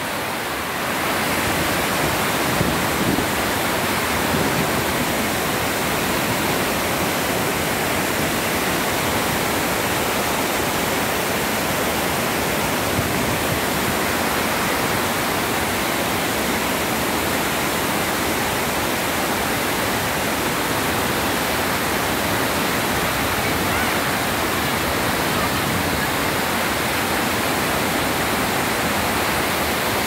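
Heavy overflow water rushing down a wide rocky spillway cascade, a steady, loud rush of falling water.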